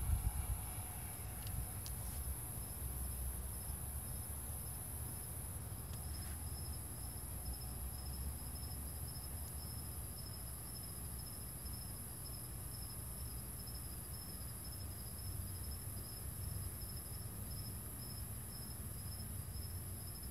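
Crickets chirping in a fast, even, high-pitched pulsing trill that grows clearer about six seconds in, over a low rumble.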